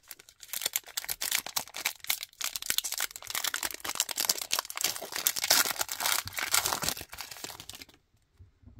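Foil wrapper of a 2023 Absolute Football trading card pack crinkling and tearing as it is ripped open by hand, a dense crackle that stops about a second before the end.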